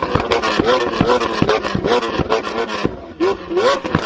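Lamborghini Aventador LP700's V12 engine revving in a run of short, quick blips, two or three a second, with sharp clicks among them and a brief drop about three seconds in.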